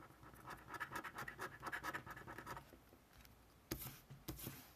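A coin scratching the coating off a paper scratch-off lottery ticket in quick short strokes, followed by two louder single swipes near the end.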